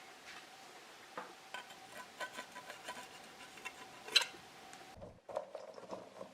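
A kitchen utensil tapping and clinking lightly against a bowl while garlic paste is worked into raw green beans: a string of small, irregular clinks, with one sharper clink about four seconds in.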